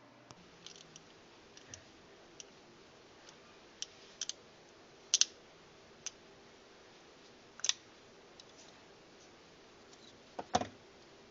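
Scattered sharp clicks and light taps of small parts and tools being handled during the repair of a small loudspeaker, irregular and mostly faint. The loudest are a double click about five seconds in, another click a little later, and a heavier knock with a dull thud near the end.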